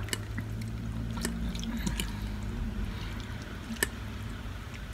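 Close-miked eating sounds: chewing and a fork clicking and scraping on a plate, with one sharp clink a little before the end, over a low steady hum.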